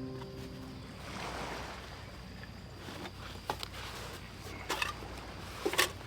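Faint steady outdoor background noise, with a few sharp clicks and knocks in the second half, the loudest near the end.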